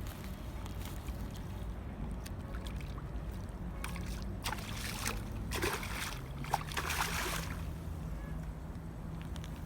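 Boat motor running steadily with a low hum, its pitch shifting slightly about six seconds in, with a few short rushing noises in the middle, like water splashing.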